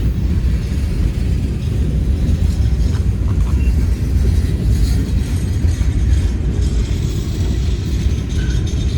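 Freight train rolling past: a steady, heavy rumble of wheels on rail, with faint clicks above it.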